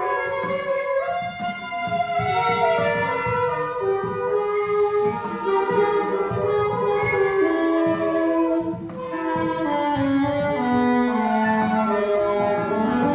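Free improvisation on saxophone, other reeds and clarinet: several wind lines weave and clash at once, harmonic and dissonant by turns. Batá drums sound underneath in short low strokes.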